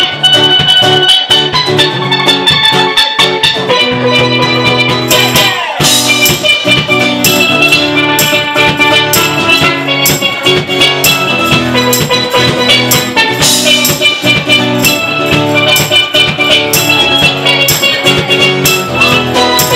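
Steel pan and acoustic guitar playing a lively song live, with a steady beat of kick drum and cymbal that grows busier about five seconds in.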